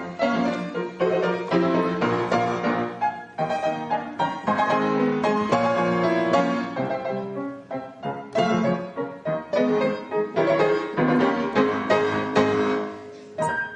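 Solo upright piano played fast, a dense stream of struck notes and chords.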